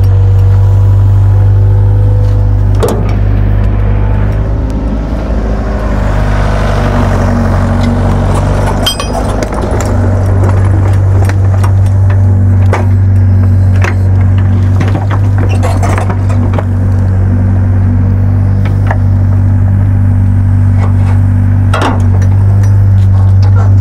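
Diesel engine of a Doosan mini excavator running steadily. For a few seconds about a quarter of the way in it works under load as the machine moves, and sharp metallic clanks come now and then.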